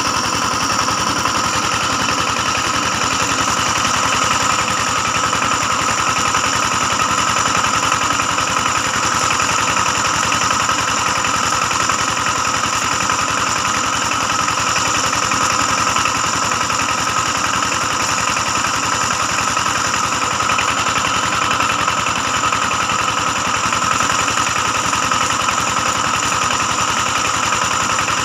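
An engine running steadily at an even speed, a constant droning hum with a fast, even pulse.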